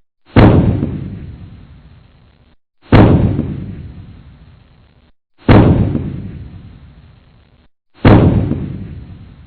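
Explosion sound effect played on a loop: four sudden booms about two and a half seconds apart, each dying away over about two seconds.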